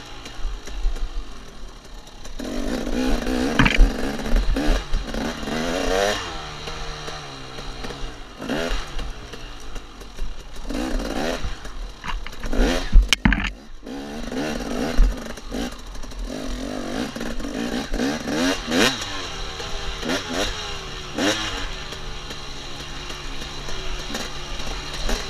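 KTM 250 XC two-stroke dirt bike engine revving up and dropping off again and again as it is ridden hard over very rough ground, with knocks and clatter from the bike over the bumps; one sharp, loud knock about halfway through.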